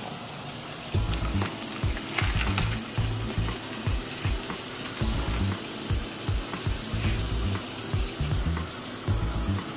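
Background music with a pulsing bass line that comes in about a second in, over a steady high hiss.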